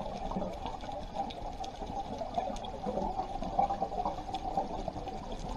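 Underwater ambience picked up by a diver's camera: a steady, churning water noise with faint scattered clicks.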